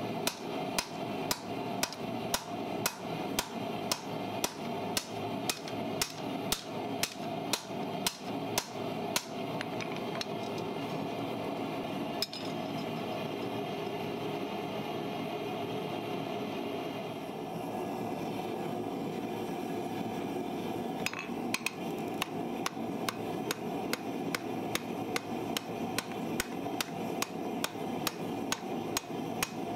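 Blacksmith's hand hammer striking red-hot file steel on an anvil in a steady rhythm of about two to three blows a second. The blows stop about ten seconds in, leaving a steady background hum, and pick up again a little after twenty seconds.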